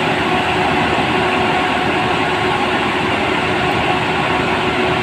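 Heavy machinery running steadily: a loud, even engine noise with a constant hum over it.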